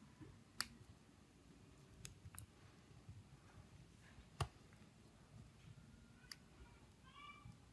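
Small, sharp clicks of flex-cable connectors and parts being pressed and pried on a smartphone's logic board, about five spread over several seconds, the loudest about four seconds in, against near silence.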